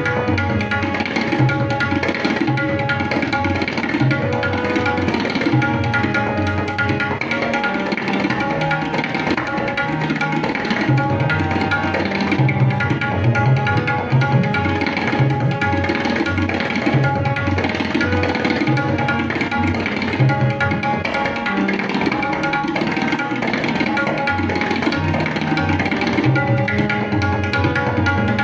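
Tabla solo in teentaal: fast, dense strokes on the dayan and low strokes on the bayan, over a harmonium holding a steady repeating lehra melody.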